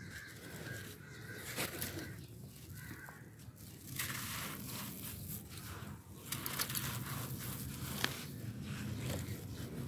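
Hands crushing and crumbling a moulded mound of grey sand and fine gravel, the grit crunching and rustling. From about four seconds in, a crumbled handful pours down through the fingers in a dense gritty hiss, with a few sharp grain clicks.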